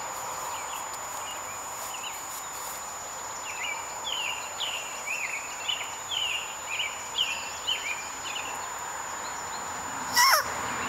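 A bird chirps repeatedly in short notes. Near the end comes a loud, short squawk falling in pitch: a grass whistle, a blade of grass stretched between the thumbs and blown through cupped hands.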